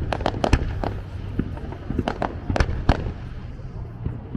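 Fireworks display bursting: a quick run of sharp bangs and crackles in the first half second, then separate single reports every half second or so, over a low rumble.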